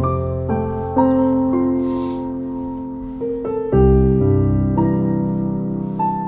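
Slow solo piano music, with notes and chords struck every half second to a second and left to ring.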